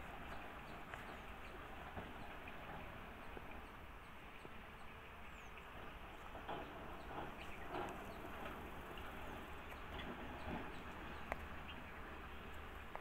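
Outdoor ambience: a steady low rumble with scattered short bird chirps and calls.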